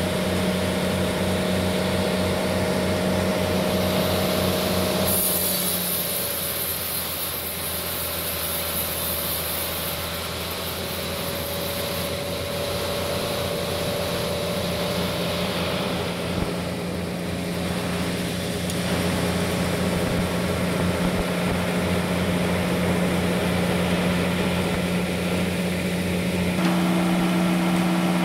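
Large industrial band sawmill running with a steady machine hum, joined by a harsher, hissing noise from about five to twelve seconds in. Near the end the pitch of the hum changes.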